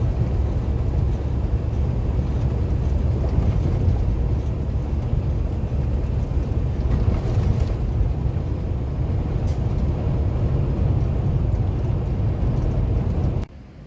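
A 2016 Peterbilt 579 semi truck under way: steady, loud low engine rumble mixed with road noise. It cuts off suddenly near the end.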